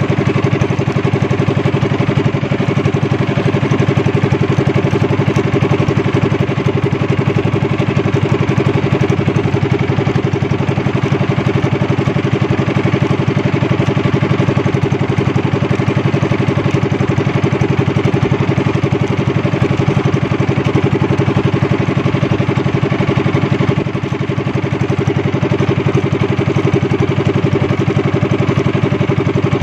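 Engine of a small motorised outrigger boat running steadily, with a fast even firing beat.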